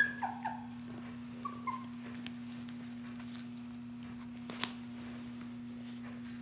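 Young standard poodle puppies whimpering: a few short, high squeaks that fall in pitch, in the first two seconds. A steady low hum runs underneath.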